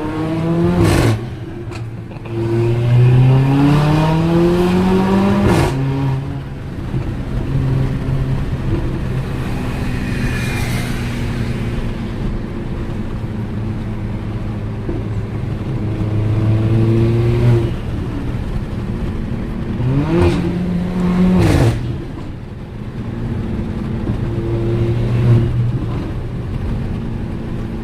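Mercedes-AMG GLA 45's turbocharged 2.0-litre four-cylinder, breathing through an aftermarket exhaust, accelerating repeatedly with its pitch rising. Three sharp exhaust cracks come on the upshifts, and the engine runs steadier in between.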